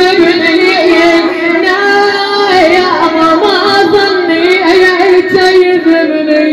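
A woman sings a southern Iraqi lament (nawa) in a long, drawn-out melismatic line with no clear words. Her voice is held near one pitch with slow, wavering bends.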